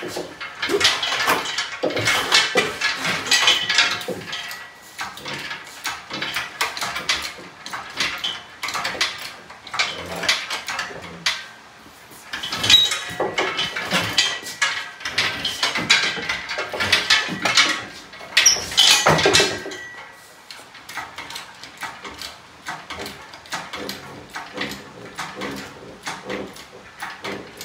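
Irregular metallic clanking, knocking and rattling with short squeaks as a Jeep 4.0L engine is hoisted out of the engine bay on a hydraulic shop engine hoist.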